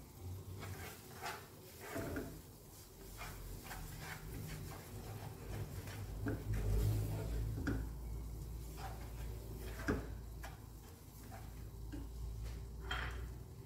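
Spatula scraping and tapping against a nonstick pan while stirring thickened milk: irregular scrapes and soft knocks, with a sharper tap about ten seconds in, over a low steady hum.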